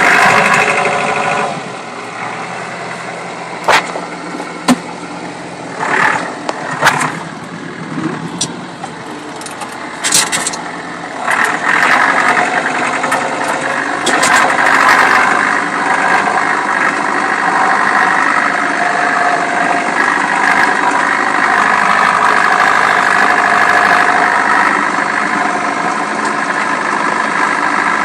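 Tractor engine running, heard from inside the cab. It goes quieter about two seconds in, with a few sharp knocks and rattles, then rises again about eleven seconds in and runs on steadily.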